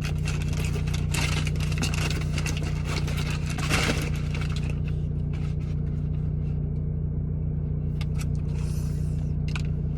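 Food packaging rustling and crinkling as it is opened, in bursts over the first few seconds and again near the end, over a steady low hum like a car engine idling.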